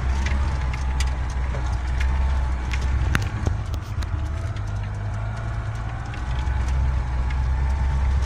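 Car heard from inside the cabin while crawling slowly along a rutted dirt track: a steady low engine and road drone with scattered knocks and rattles from the bumps. The drone eases for a few seconds about halfway through, then picks up again.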